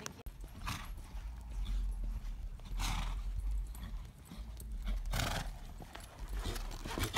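Hoofbeats of a palomino Paint gelding loping on the soft dirt of an arena, with a few louder rushing bursts about two seconds apart over a steady low rumble.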